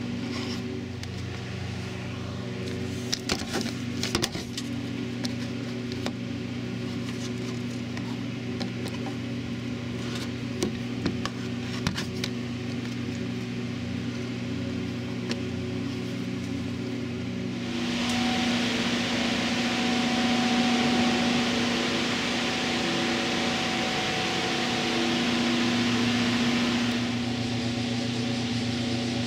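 A steady mechanical hum at a fixed pitch, with scattered light clicks and knocks in the first half. About two-thirds of the way in, a loud hiss joins it for several seconds, then drops away.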